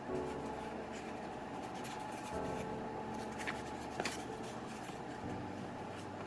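Soft background music of held chords that change every few seconds, with a few light clicks and rustles of small packaging being handled.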